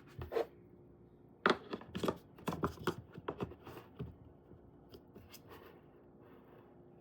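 Handling noises: sharp clicks and taps from objects being moved about, a quick run of them starting about a second and a half in and thinning out after about four seconds.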